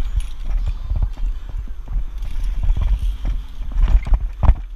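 Irregular hollow footsteps and knocks on the wooden beams of a high ropes course obstacle, over a steady low rumble of wind on the microphone.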